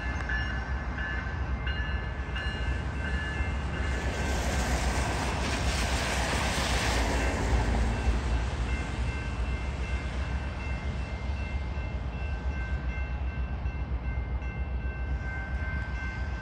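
Siemens Charger diesel locomotive with its Cummins engine arriving with a short passenger train: a steady low rumble, with engine and wheel-on-rail noise swelling to a peak about six to seven seconds in, then easing.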